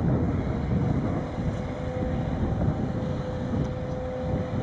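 Sennebogen 870 M material handler's diesel engine running with a steady low rumble while its timber grapple works the log pile, with wind on the microphone. A faint steady whine joins about a second and a half in.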